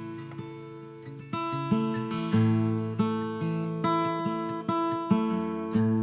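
Instrumental song intro on acoustic guitar: slow picked chords, each ringing out and fading before the next.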